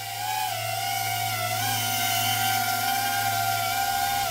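Small 6S FPV quadcopter's motors and propellers whining steadily as it comes in to land, the pitch dipping slightly about half a second in and rising a little again after about a second and a half.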